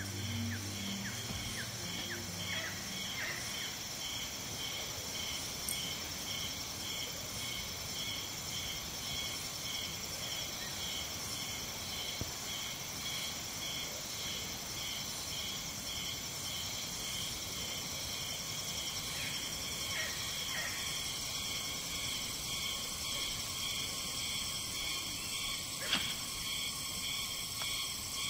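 Tropical forest insect chorus: several insects calling at once in steady high-pitched drones and trills, one pulsing about twice a second. A single sharp click comes near the end.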